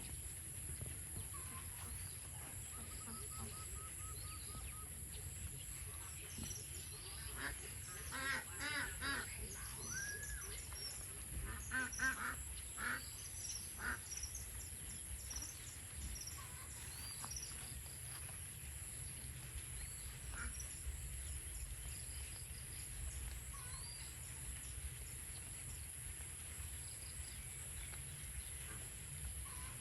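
A flock of domestic ducks quacking, with the calls bunched together between about 7 and 14 seconds in and only scattered single calls elsewhere. A steady high-pitched hiss lies underneath.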